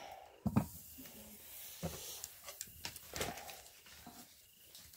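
Pigs grunting in their pen amid scattered knocks and rustling.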